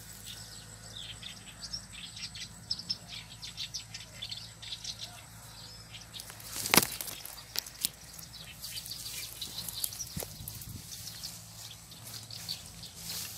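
Cattail leaves and stems rustling and crackling as they brush against someone pushing through the stand, in quick irregular bursts, with one sharp crack about 7 seconds in.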